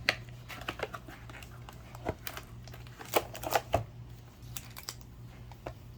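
Lorcana trading cards being handled and set down on a small digital scale: a scatter of light clicks and taps, busiest about three to four seconds in, over a low steady hum.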